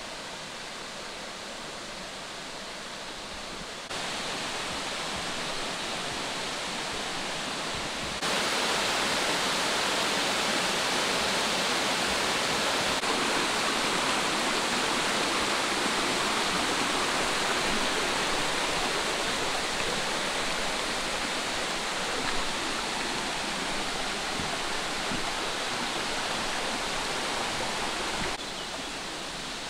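Water of the Holchen waterfall rushing as a steady noise. It grows louder in two steps, about four and about eight seconds in, and drops back near the end.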